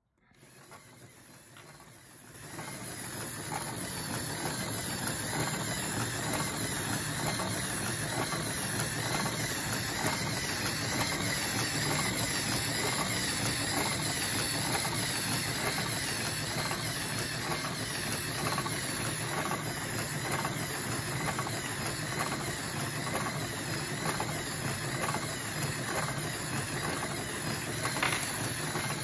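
LEGO model of Titanic's reciprocating steam engine running, its plastic cylinder, connecting rods and eccentrics moving with a steady mechanical whirr and a fast, even clicking. It starts softly and gets louder about two seconds in.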